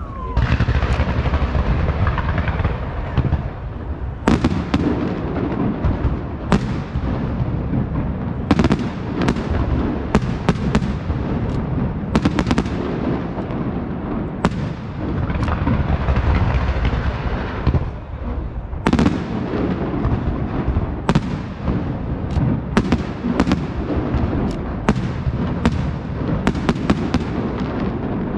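Castillo fireworks display by Pirotecnia Martí: a continuous rumble of launches and bursts with dozens of sharp shell bangs, coming in quick clusters with short lulls between them, each bang trailing off in an echo.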